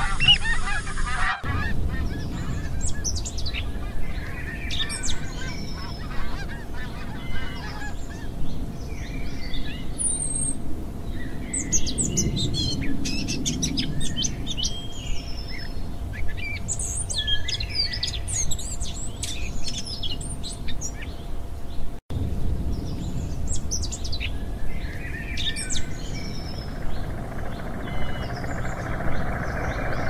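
Geese honking for about the first second and a half, then cutting to many small songbirds chirping and calling in short, scattered high notes over a low rumble and a faint steady hum. A steady rushing noise builds near the end.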